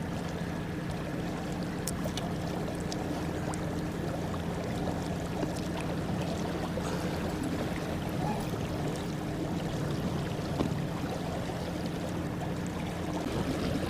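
Electric boat under way: a steady low hum from its motor over a continuous rush of water along the hull, with a few small ticks.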